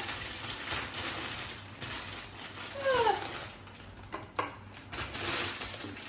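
A young macaque gives a short, falling squeal about three seconds in, over the crinkling of a plastic bread bag being handled.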